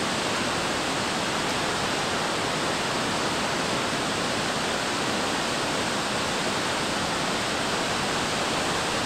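A 48-foot waterfall pouring into its plunge pool: a steady, unbroken rushing of falling water.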